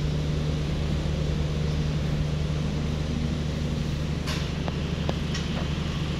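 A large diesel engine running steadily at a constant speed, a low, even hum that does not change in pitch, with a few faint ticks over it.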